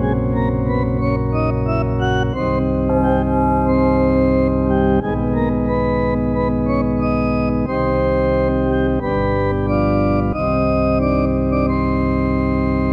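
Instrumental music of held keyboard-like chords, changing every two to three seconds.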